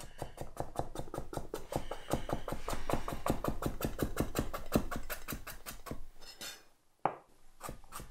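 Kitchen knife chopping vegetables on a cutting board in quick, even strokes, about seven a second, with a brief pause about seven seconds in.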